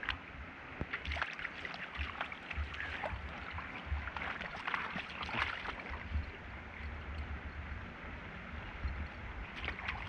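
Shallow river water splashing and sloshing over a stony bed, in short irregular splashes, as a Rottweiler wades through it, with the flowing river under it and an intermittent low rumble.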